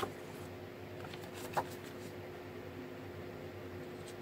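Light handling of a folding knife and a paper card: a click at the start and a sharper one about one and a half seconds in, with a few faint ticks, over a steady low hum.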